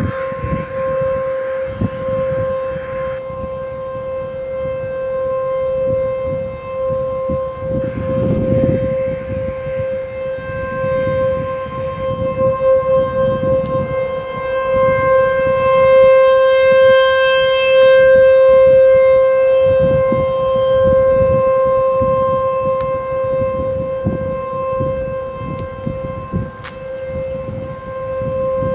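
Outdoor warning siren holding one steady tone, its loudness swelling to its loudest about halfway through and fading again.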